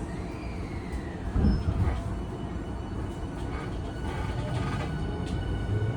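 Tokyu 5000-series train heard from inside a motor car, with its Hitachi IGBT VVVF inverter and traction motors: a steady running rumble, a thin whine gliding down in pitch over the first two seconds, and a thump about a second and a half in. Near the end a low motor tone begins to rise as the train draws power.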